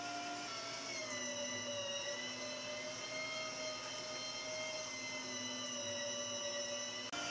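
Electric meat grinder running as it grinds pork and beef, a steady motor whine. Its pitch drops about a second in as the motor takes the load of the meat, and rises again just before the end.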